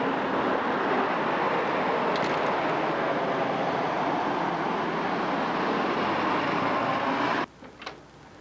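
Steady noise of a moving vehicle, an even rushing haze, that cuts off abruptly about seven and a half seconds in, leaving a quiet room with a few faint ticks.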